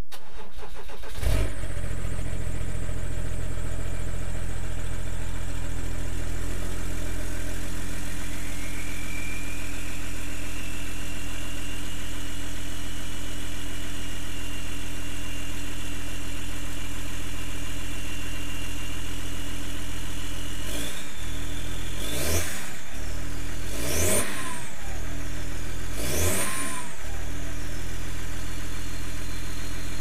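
BMW E46 330d's 3.0-litre straight-six turbodiesel, de-catted with the centre silencer removed so only the rear box remains, cold-started: it fires about a second in and runs at a steady idle, with a thin whistle rising over it and then holding. Near the end it is blipped four times, the first lightly, each rev with a whistle that rises and falls back.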